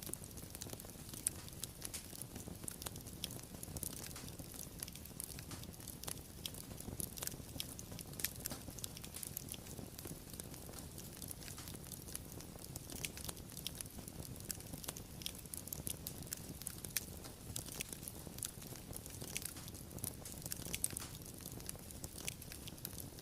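Fire crackling: many small, irregular pops and snaps over a steady low rumble.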